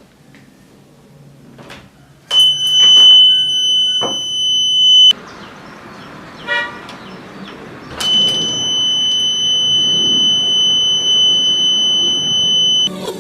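A 3-volt buzzer in a homemade battery door alarm sounds a steady high-pitched tone twice: about three seconds, then after a pause about five seconds. There are a few clicks during the first sounding.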